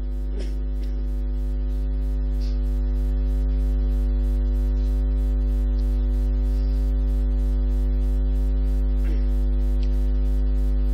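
Steady electrical mains hum from a microphone and sound system, a low drone with higher overtones. It grows a little louder over the first few seconds, then holds steady.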